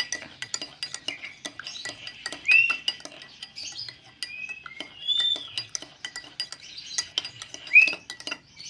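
A spoon stirring a drink in a glass, with many quick clinks against the glass. Birds whistle short chirping notes over it, loudest about two and a half seconds in and again near the end.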